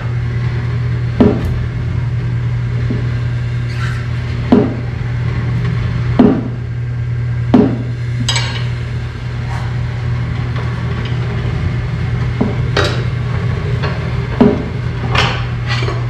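Steel tire irons clanking against a motorcycle wheel rim on a manual tire changer as a stiff radial tire's bead is levered off: a series of sharp metal knocks at uneven intervals. A steady low hum runs under them throughout.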